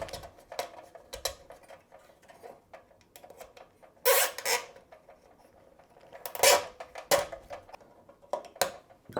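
Plastic zip tie being threaded and pulled tight through its ratchet by hand: scattered small plastic clicks and handling scrapes, with two louder short rasps in the second half as the tie is drawn through.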